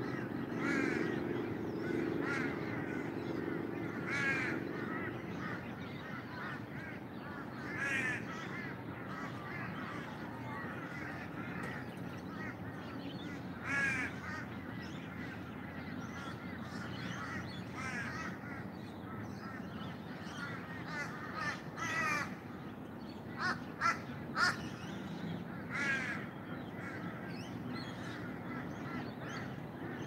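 Crows cawing, a call every few seconds, among other birds calling throughout, with three short, sharp louder sounds about three-quarters of the way through.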